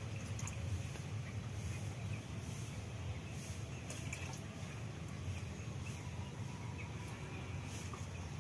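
Broiler chicks peeping faintly and intermittently over a steady low hum, with a few light clicks.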